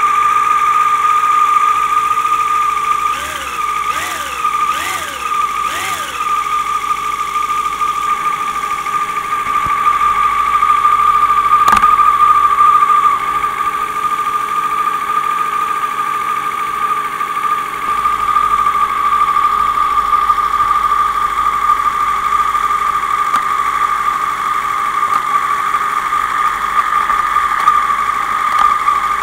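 A Yamaha motorcycle engine idling, picked up through an electronic stethoscope (contact microphone) held against the stator cover, with a strong steady whine. Four quick throttle blips rise and fall about three to six seconds in, and there is a single sharp click near twelve seconds. It is a high-mileage engine (60,000 miles) that the owner expects to sound a little loose.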